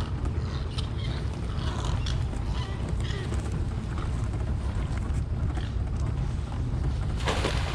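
Steady low rumble of a boat on the water, with scattered light clicks and knocks and a short rushing noise near the end.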